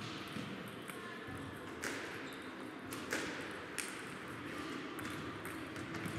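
Table tennis balls clicking off bats and tables in an irregular patter of sharp clicks, from the rally in front and play at other tables.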